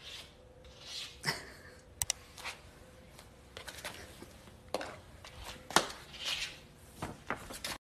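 A cat pawing and scratching at a wooden surface beside a pile of coffee grounds, the burying motion cats make at a strong smell: scattered light scratches, swishes and a few sharp taps.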